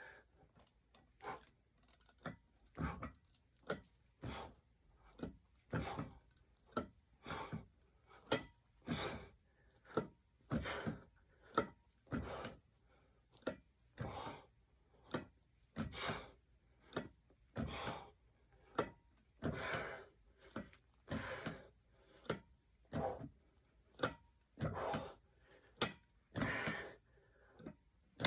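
Weight plates on a barbell clinking and rattling on the sleeve as the bar is rowed up and lowered, one short metallic jangle about every second in a steady rhythm.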